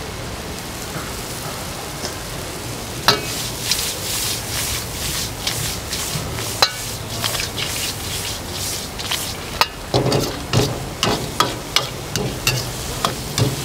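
Mantis shrimp sizzling as they stir-fry in a wok, with a metal ladle scraping and clanking against the wok from about three seconds in, more often near the end.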